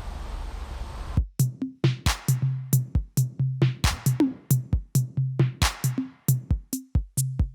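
Electronic drum-machine beat that starts suddenly about a second in: crisp kick and snare hits repeating at a steady pace, with a low bass note under them. Before it, a steady noise hiss.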